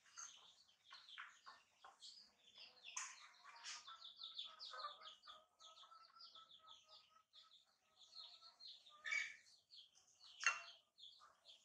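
Small birds chirping rapidly and continuously in short, high notes. Two sharp knocks near the end are the loudest sounds.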